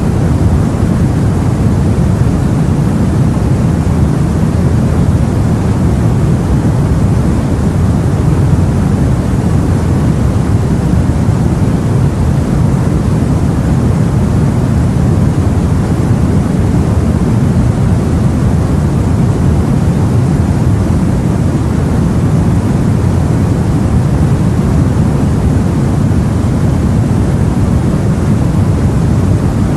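Steady, deep wash of sea noise, heavy in the low end and even throughout, with no separate waves breaking or other events.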